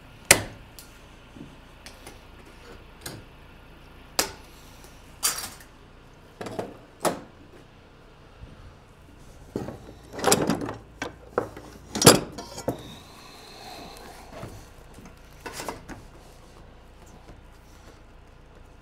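Sheet-metal roofing panel being bent at its edge with a hand seamer while a cross-seam hem is formed: irregular metallic clanks and clicks, with the loudest knocks about ten and twelve seconds in.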